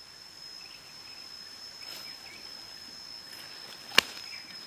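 Jungle ambience: an insect's steady, high-pitched trill with a few faint chirps, broken by one sharp click about four seconds in.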